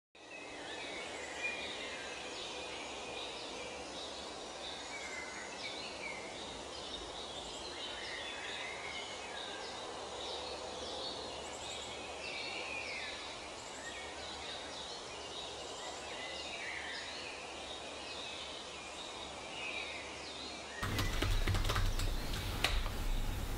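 Outdoor ambience: many small birds chirping over a steady background hiss. About 21 seconds in it cuts abruptly to a louder room sound with a low hum and scattered sharp clicks.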